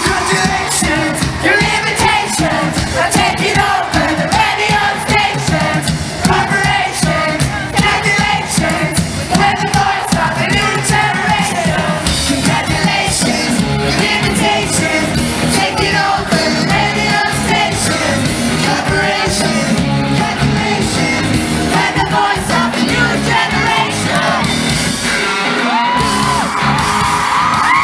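Live rock band playing a song in a large hall, with lead vocals, drums and guitars, and the crowd singing along and shouting. Near the end the drums and bass drop out, leaving a held note.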